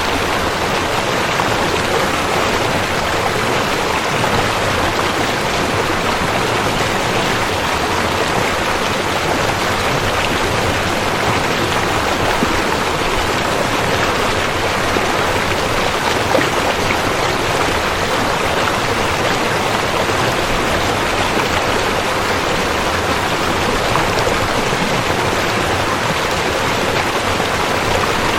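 River water flowing: a steady, even noise of running water, unchanged throughout.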